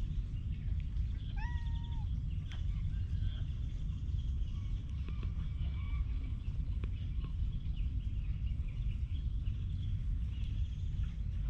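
Birds singing in the surrounding woods: a clear whistled note about a second and a half in, then scattered chirps and short whistles. Under them runs a steady low rumble close to the microphone.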